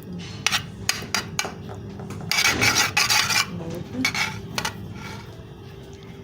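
Spoon clicking against a pan a few times, then scraping in a rasping stretch of about a second, with a shorter scrape after it: a spoonful of ghee being scraped off into the pan.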